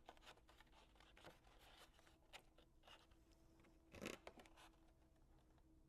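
Small craft snips cutting paper: faint, scattered short snips and paper handling, the loudest about four seconds in.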